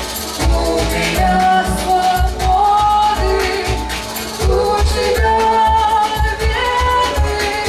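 A woman sings live into a microphone over a loud electronic backing: a synthesizer band with a steady, bass-heavy beat and ticking hi-hats.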